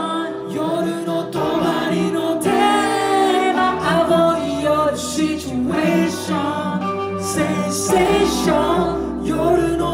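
Live pop music over a PA, with voices singing over the track; a deep bass comes in a few seconds in.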